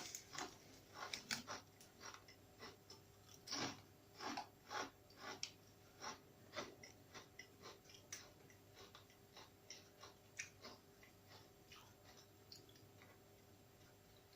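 A person biting into and chewing crunchy chili-flavoured tortilla (nacho) chips close to the microphone. The crisp crunches come thick and loud over the first few seconds, then grow softer and sparser as the chips are chewed down.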